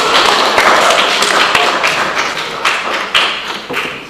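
Studio audience clapping, a dense patter of hand claps that dies away near the end.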